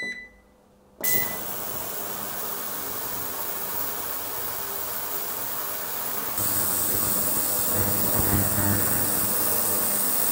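A Vevor digital ultrasonic cleaner beeps once from its control panel, then about a second in its ultrasonic transducers switch on with a steady hissing buzz of cavitation through the water in the stainless tank, cleaning two engine pistons. About six seconds in the hiss grows louder and brighter.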